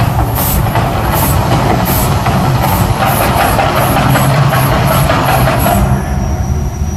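Volcano show's heavy, deep rumbling roar, with sharp beats about twice a second from the show's soundtrack drums that stop about six seconds in.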